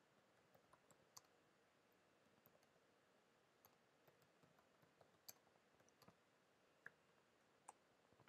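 Computer keyboard being typed on: faint, irregular key clicks over near-silent room tone.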